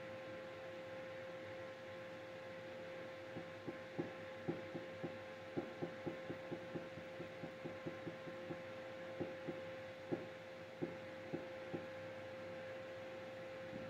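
A steady electrical hum with one constant tone. Over it, from a few seconds in until near the end, a run of light, short taps or knocks comes irregularly at about two a second.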